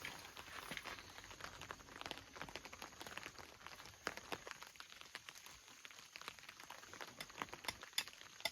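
Raindrops pattering as scattered, irregular light taps, coming more often toward the end.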